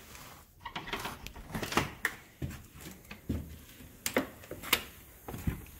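A door being worked by hand: a string of sharp knocks and clicks from the door, its latch and frame, about eight over a few seconds.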